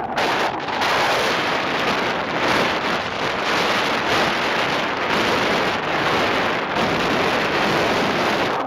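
Strong gusty wind buffeting the microphone of a camera hung from a kite line, a steady loud rushing hiss with a couple of brief dips near the start.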